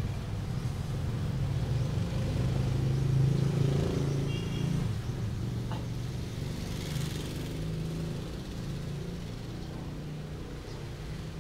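A motor vehicle's engine passing on a nearby road: a low hum that builds to its loudest about three seconds in, then slowly fades. A brief high chirp sounds midway.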